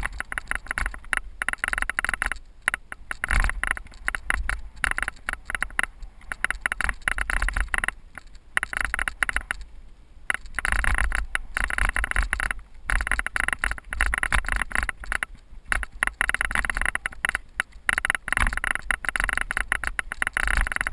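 Cyclocross bike rattling and jolting over a rough dirt singletrack, picked up by a camera mounted on the handlebars, with tyre noise and wind buffeting. The jolts come thick and irregular, easing briefly about ten seconds in.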